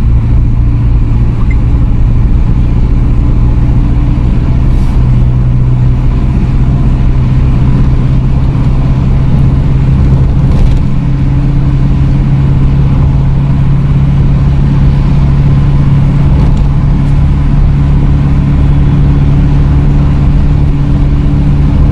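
Car engine and road noise heard from inside the cabin while driving: a steady low drone whose pitch rises slightly about five seconds in.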